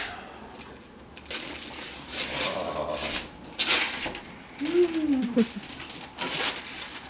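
Wrapping paper being torn and crinkled off a gift box in several noisy rips. About five seconds in there is a short voice sound whose pitch rises and falls.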